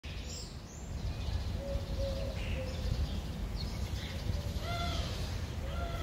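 Birds calling: high chirps at the start, a held call in the middle, then two short, clear arching calls near the end, over a steady low rumble.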